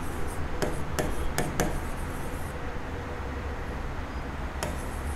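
Light taps and clicks of writing on a board, several in the first second and a half and one more near the end, over a steady low room hum.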